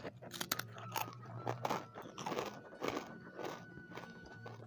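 Close-up crunching as a person bites into and chews a crisp fried cracker: a quick irregular run of crunches that thins out near the end.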